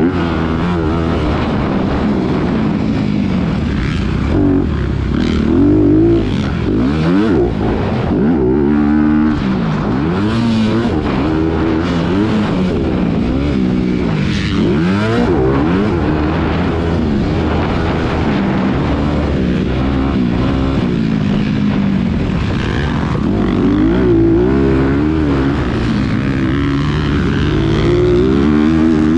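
Motocross bike's engine heard from on board at race pace, its pitch climbing and dropping again and again as the rider works the throttle and shifts through the gears, with rushing air and dirt noise underneath.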